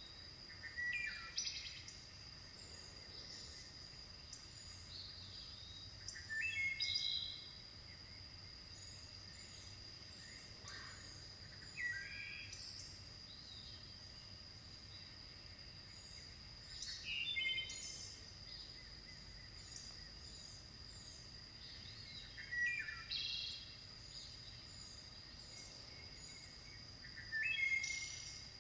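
Birds singing: one bird repeats a short song phrase about every five seconds, with fainter chirps in between, over a steady high insect drone.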